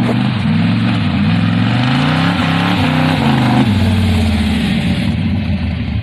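Car engine running hard under acceleration, its pitch climbing and falling, then settling lower and steadier a little past halfway: a launch test of the engine on a newly fitted mechanical fuel pump.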